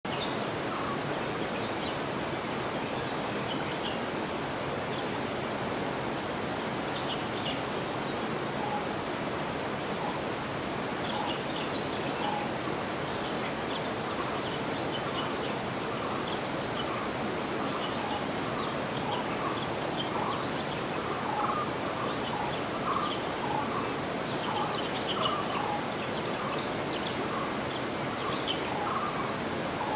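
Forest ambience: a steady even rush of background noise with birds calling over it. Scattered high chirps run throughout, and from about twelve seconds in one bird repeats a short call over and over.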